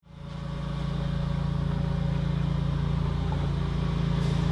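An engine idling steadily, fading in over the first half second.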